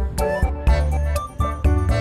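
Background music with a steady beat, a bass line and pitched melody notes.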